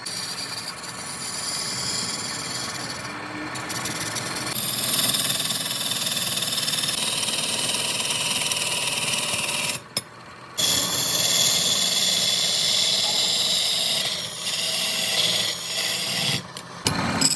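Woodworking machinery running on wood, a steady machine noise with a high-pitched hiss of cutting, breaking off briefly about ten seconds in.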